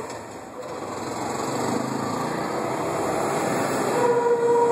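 Road traffic passing close, led by an auto-rickshaw's small engine, the engine noise building as it goes by. A horn sounds briefly about four seconds in.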